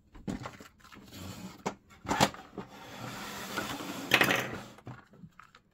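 Hard plastic toy wardrobe unit being handled and moved: a few clicks and knocks, the loudest about two and four seconds in, with a scraping rub between them.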